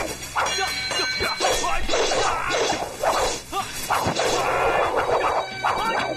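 Fight sound effects: rapid whooshes of swung poles and limbs and many sharp whacks of blows landing, with crashing hits, over background music.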